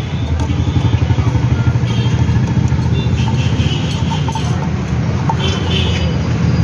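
A small motor vehicle engine idling steadily, a fast even pulsing low rumble.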